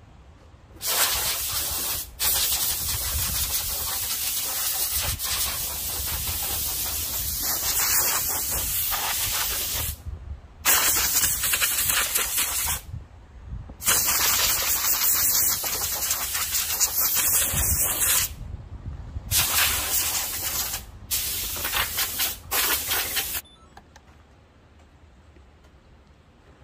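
Loud hissing spray, such as a jet of compressed air, in about seven blasts of one to several seconds each that start and stop abruptly, then falls quiet.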